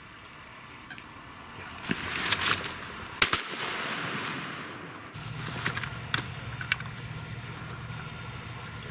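Several shotgun shots in quick succession about two seconds in, with another about a second later, each followed by a brief echo. After a cut, a few fainter sharp cracks sound over a low steady rumble.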